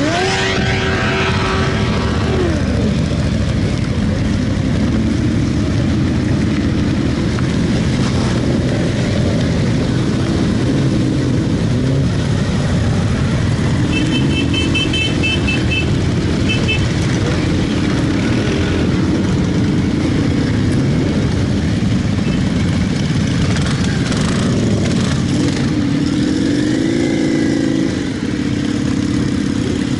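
A column of motorcycles riding past in a steady stream, their engines a continuous loud rumble, with one bike revving up at the start. About halfway through comes a short run of high beeps.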